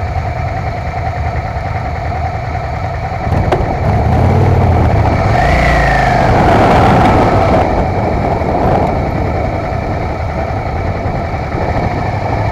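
Motorcycle engines idling, then revving as the bikes pull away: the engine sound grows louder about three seconds in, rises and falls in pitch, and eases back to a steady drone after about eight seconds.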